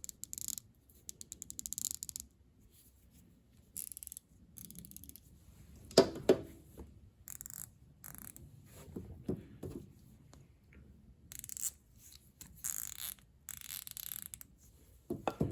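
Gearwrench fine-tooth ratchets being swung back and forth, giving several short runs of rapid fine clicking as the pawl skips over the gear teeth. A single knock about six seconds in is the loudest sound.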